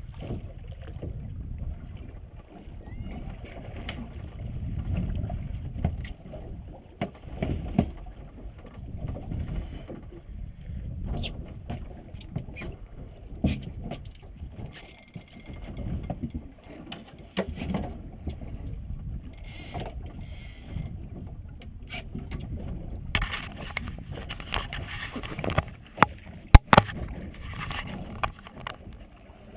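Small boat adrift at sea: water sloshing against the hull and wind on the microphone, with scattered knocks and clicks of gear being handled. There are two sharp loud clicks a few seconds before the end.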